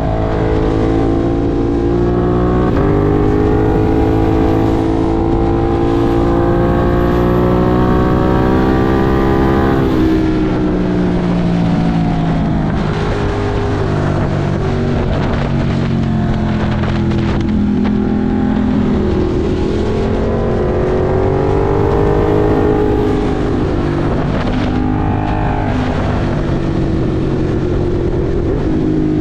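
Ducati Monster 1200 R's L-twin engine under way, heard from the rider's seat: the revs climb steadily for about ten seconds, drop sharply, then rise and fall several times with the throttle.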